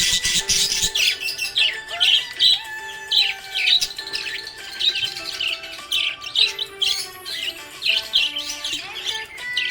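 Budgerigars chirping busily, a quick run of short high chirps and squawks, over background music with long held notes.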